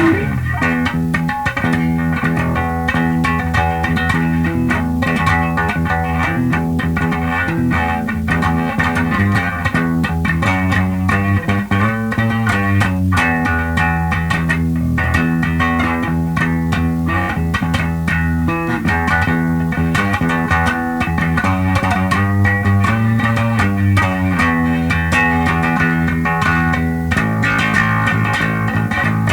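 Electric bass riffs played on a Squier Mini P Bass with DiMarzio Relentless pickups through a Sound City Master Lead 50 amplifier head, a run of changing notes with strong low notes and no pauses.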